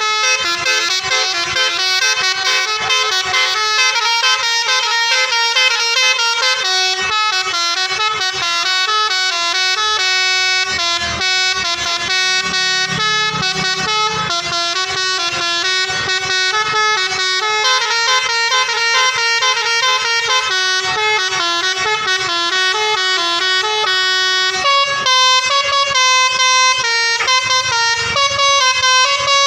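Basuri telolet multi-tone horn on a tour bus playing a melody: loud horn notes stepping quickly from pitch to pitch without a break, switching to a different tune about 25 seconds in.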